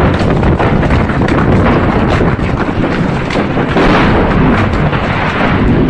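Ammunition dump exploding: a loud, unbroken rumble with many sharp cracks through it.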